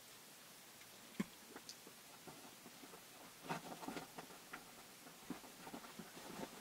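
Faint, irregular small ticks and taps over a quiet room, handling noise while felt-tip eyeliner is drawn along the lash line, coming more often from the middle on.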